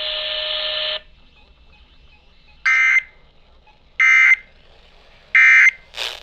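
Emergency Alert System end-of-message signal: three short, harsh digital data bursts about 1.3 s apart, marking the end of the warning. Before them a steady buzzing tone cuts off about a second in, and a brief burst sounds near the end.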